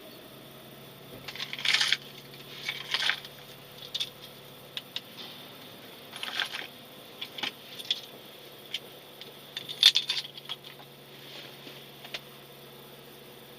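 Irregular metallic clinks and rattles in short clusters, over a faint steady hum.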